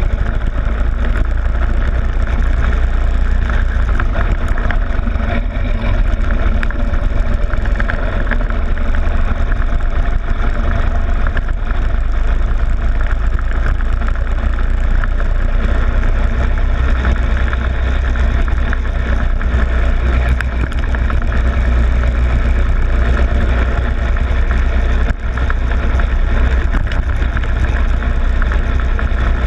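Go-kart engine running as the kart laps, heard steadily with a heavy low rumble from wind and vibration on a camera fixed to the kart's front plastic fairing. The sound dips briefly once near the end.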